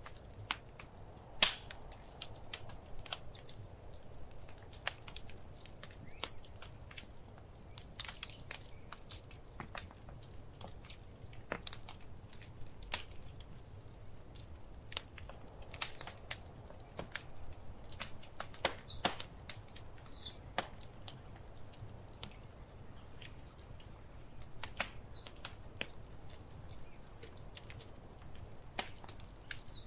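Wood fire crackling in a fireplace: irregular sharp pops and snaps over a low steady rumble, with one loud pop about a second and a half in.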